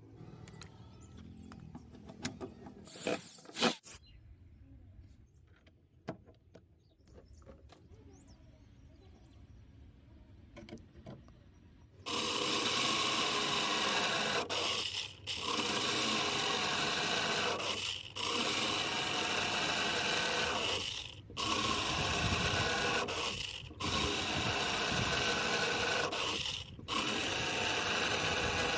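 Twin-motor drilling machine: a few light clicks and handling sounds, then about twelve seconds in the motors start running loudly in stretches of roughly three seconds, each broken by a brief drop.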